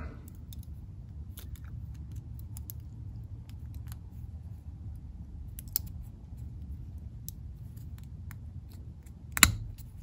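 Small plastic ticks as a plastic terminal lock is pressed into the back of a Toyota wiring connector, ending in one sharp snap about nine seconds in as the lock seats. A low steady hum runs underneath.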